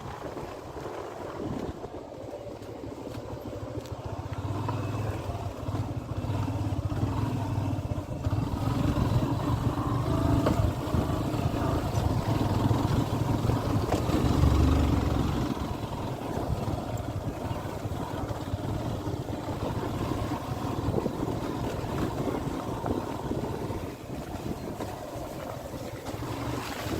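An engine running steadily with a low rumble. It grows louder about four seconds in, is loudest around the middle, then settles, with some wind noise on the microphone.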